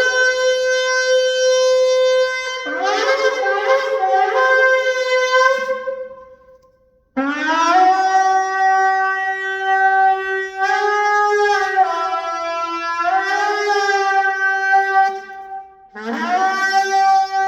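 Gemsbok (oryx) horn shofar blown in long blasts, each scooping up into its note. Two blasts come in the first six seconds. After a pause a longer, lower blast holds for about eight seconds, its pitch wavering and dipping in the middle, and another blast starts near the end.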